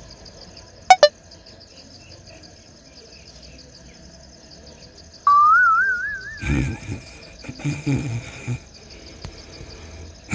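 Steady cricket chirring, with two sharp pops about a second in and a wavering, rising whistle around five seconds in. From about six and a half seconds, a run of low, rough snore-like grunts takes over: the comic sleeping sound.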